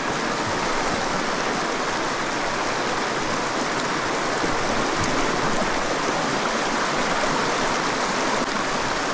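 A creek flowing: a steady, even rush of water.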